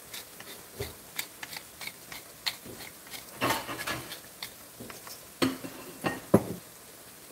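Scattered clicks and knocks of a wooden kitchen utensil against a frying pan. A louder clatter comes about halfway through, and a few sharper knocks come near the end.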